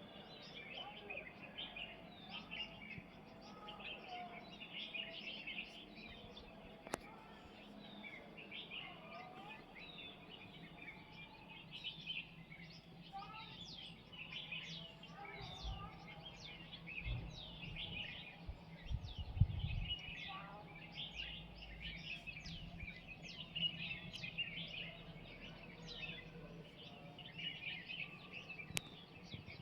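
Several small birds chirping and calling over one another, a steady chorus of quick high chirps with a few lower calls mixed in. A low rumble swells in the middle and fades again.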